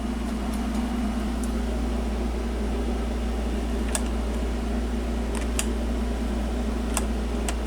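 Steady low hum, with a few faint ticks in the second half.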